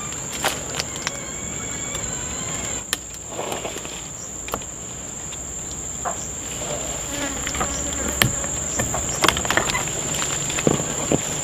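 Insect chorus: a steady high-pitched drone, with scattered short clicks over it.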